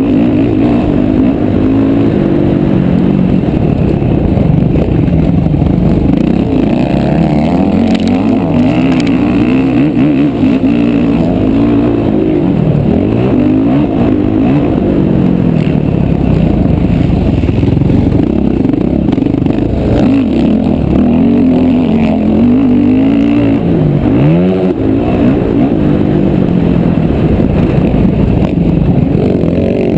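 Motocross bike engine heard from the rider's helmet camera, revving up and down continuously as the rider accelerates, shifts and rolls off around a dirt track.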